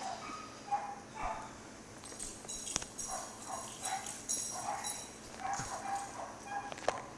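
A pit bull puppy playing with a new dog toy: a run of short high-pitched sounds, about two a second, with a couple of sharp knocks.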